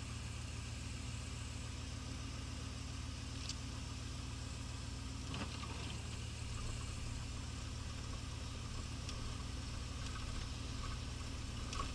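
A 1983 Pontiac Trans Am's 305 small-block V8 running steadily at low revs, heard from inside the cabin as an even, low hum. A few faint clicks sound over it, the clearest near the end.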